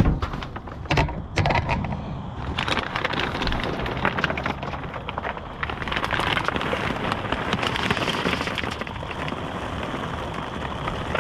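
A few knocks in the first second or so, then a dense crackling rustle as a gloved hand digs into a large paper-and-plastic bag of dry dog food, the kibble shifting and the bag crinkling.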